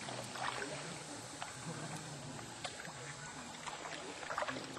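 Paddles dipping and splashing beside sea canoes, with water lapping around the hulls; the splashes come irregularly, a few each second at most, the busiest cluster near the end.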